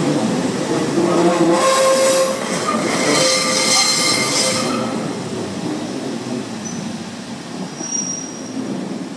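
Northern Class 156 and Class 142 diesel multiple units rolling slowly past round a curve, with underfloor diesel engines running and the wheels squealing loudly and high-pitched for about three seconds. The squeal stops and the running sound fades as the rear unit passes, with one short thin squeal near the end.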